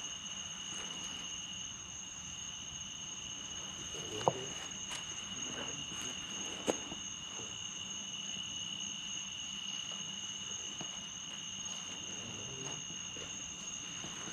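Steady insect chorus trilling in two unbroken high tones, with two sharp clicks or snaps, one about four seconds in and one near seven seconds.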